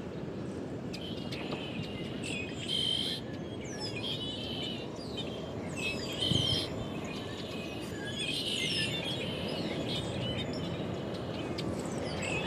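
Red-winged blackbirds calling, with many short chirps and whistles and a trilled song every few seconds, over a steady wash of ocean surf.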